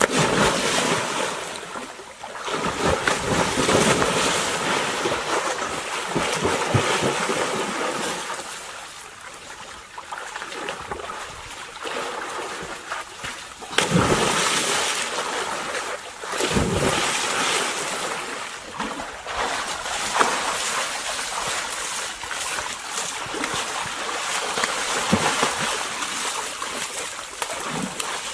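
Water splashing and sloshing in surges that swell and fade, the loudest about a second in and around fourteen seconds in.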